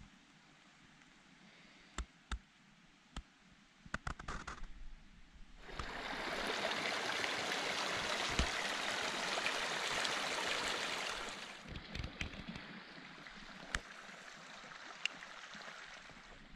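Small mountain creek rushing and splashing over rocks. It comes in suddenly about five and a half seconds in and fades out about six seconds later. Before and after it there are scattered faint clicks and taps.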